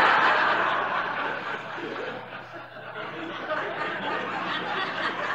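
Audience laughing, loudest at first and slowly dying away.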